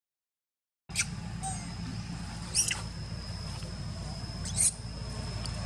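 Long-tailed macaques squeaking, starting about a second in: three short, sharp, high-pitched calls roughly two seconds apart, over a steady high whine.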